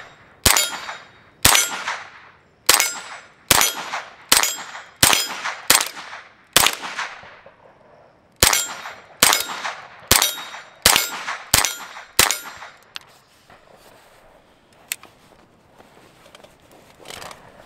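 CZ Scorpion .22 LR carbine firing about fourteen single shots at a steady pace of roughly one a second, each shot sharp with a short ringing tail. The magazine holds subsonic and supersonic rounds alternated. There is a brief pause about seven seconds in, and the shooting stops a few seconds before the end.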